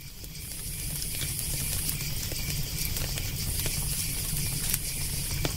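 Campfire crackling with sharp scattered pops over a steady low rumble of burning wood and a faint high hiss; it fades in over the first second.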